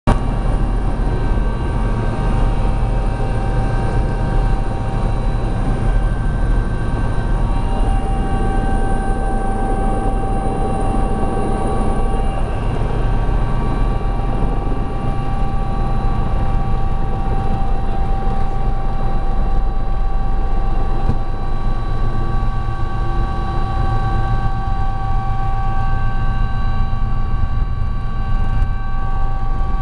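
Sikorsky helicopter running steadily: a constant deep drone from the rotors and engines with a steady high turbine whine over it.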